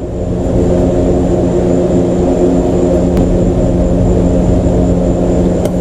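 A steady mechanical drone, a constant engine-like hum over a low rumble, with a faint sharp click near the end as a spark plug wire boot snaps into place.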